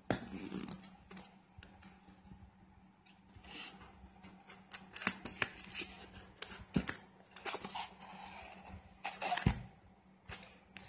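Hands opening a white cardboard retail box and handling a folded paper leaflet: scattered paper rustles, scrapes and light clicks, with a louder knock about nine seconds in.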